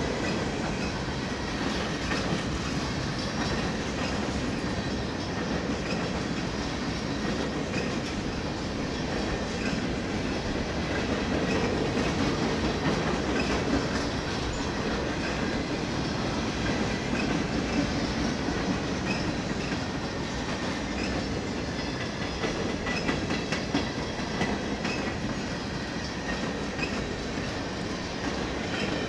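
A long freight train's cars rolling past at steady speed, steel wheels clacking over the rail joints under a continuous rumble.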